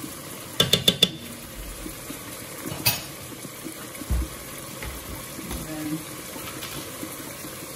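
Four quick sharp taps of a spoon against a rim, knocking garlic salt into a pot of ground beef, followed by one more tap and a dull thump, over a steady low hiss.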